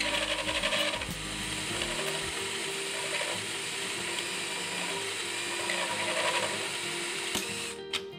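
DeWalt 20V XR cordless drill boring a hole through a layered panel of sheet metal, fiberglass and metal underneath, running steadily under load with a rough, chattering cut, then stopping suddenly near the end.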